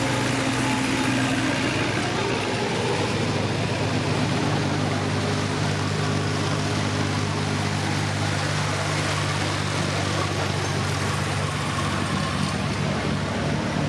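Farm tractors driving past one after another, their engines running with a steady low hum.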